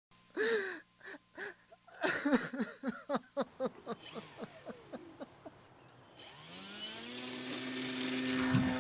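A run of short chirping blips that come faster and fade. About six seconds in, an RC plane motor spins up to a steady humming whine.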